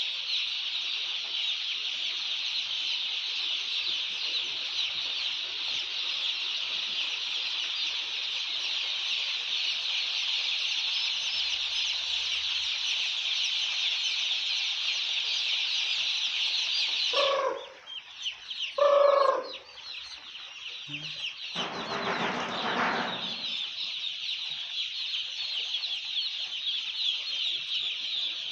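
A large flock of day-old chicks peeping continuously in a dense, high chorus. About two-thirds of the way through the chorus breaks off for a few seconds, and a couple of short, louder, lower sounds come in before the peeping resumes.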